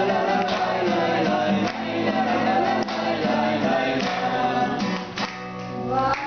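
A man and several women sing together, accompanied by a strummed acoustic guitar. Near the end the song closes on a long held note.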